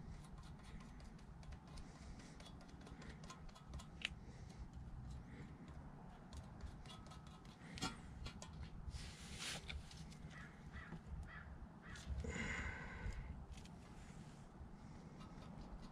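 Faint light clicks and handling noise from gloved hands working sealant around the flange of an aluminium VW MK4 oil pan, over a low steady rumble. A brief harsh call, the loudest sound here, comes about twelve seconds in.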